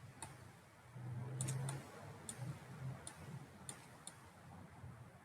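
Computer mouse clicking about eight times, irregularly and some in quick pairs, over a faint low hum.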